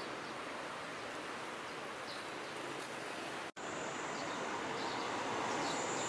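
Outdoor street ambience: a steady wash of noise with faint traffic. It breaks off for an instant about halfway through, then carries on slightly louder with a faint high whine.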